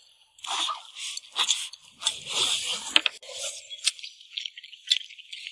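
Two people eating spiced pork ribs and rice: slurping, sucking and chewing noises with a few sharp clicks of chopsticks against the bowls, busier in the first half and sparser near the end.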